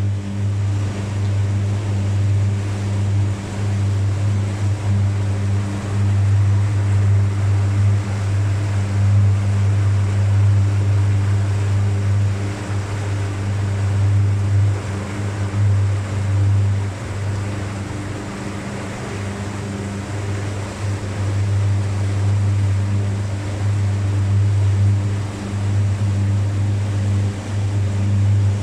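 Abra water taxi's diesel engine running steadily with a low hum, over the rush of water and wind.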